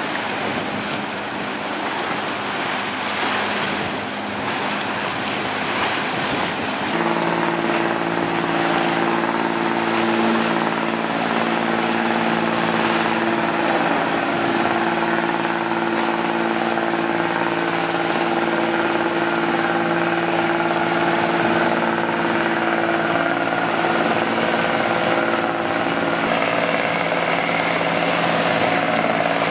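A marine engine drones steadily, setting in about seven seconds in as a cluster of steady tones, over a constant wash of wind and water.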